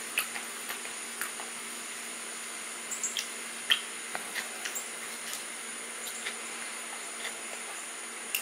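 White-tailed deer fawn eating from a plastic tray: irregular small wet clicks and smacks of its mouth and tongue, a cluster around three seconds in. Behind them runs a steady high-pitched insect drone.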